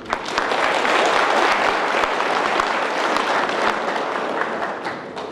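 Audience applauding, a dense patter of many hands clapping that starts at once and tapers off near the end.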